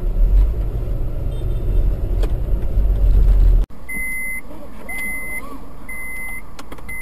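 Low, steady rumble of a car driving, heard from inside the cabin on a dashcam, cut off abruptly about three and a half seconds in. It gives way to a quieter street scene with a high electronic beep repeating about once a second, each beep about half a second long, typical of a pedestrian crossing signal sounding on a red light for traffic.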